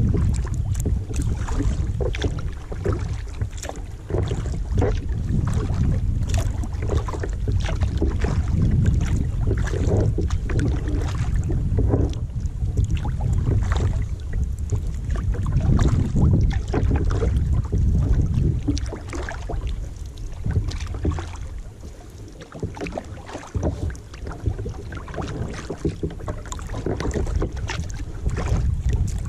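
Kayak paddle dipping and splashing in lake water, with wind rumbling on the microphone; the wind rumble eases for a few seconds after the middle.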